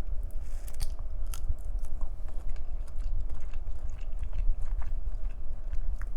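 Close-miked chewing and biting of shrimp cocktail, with many short mouth clicks scattered through it.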